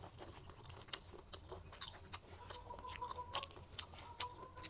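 A ripe jackfruit bulb being bitten and chewed close to the microphone: irregular mouth clicks and smacks.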